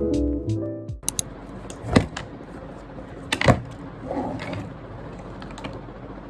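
Background music that cuts off about a second in, followed by low room tone with a few light knocks and clicks, about three of them, and a faint rustle.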